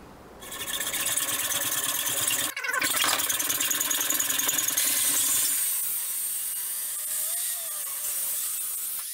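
Hacksaw rasping back and forth through a steel motorcycle exhaust pipe, then from about halfway an angle grinder's cutting disc running steadily through the pipe with a high whine.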